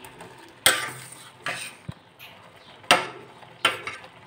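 Steel spoon stirring noodles in a stainless-steel pot, clanking against the pot four times with short metallic knocks that ring briefly.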